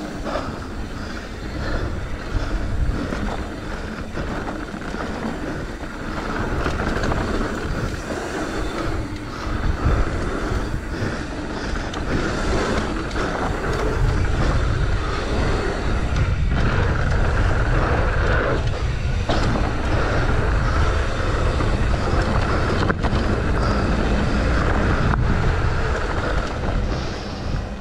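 Mountain bike riding down a dirt flow trail: tyres rolling over dusty gravel and the bike rattling over bumps, with wind rumbling on the camera microphone, heavier from about halfway through.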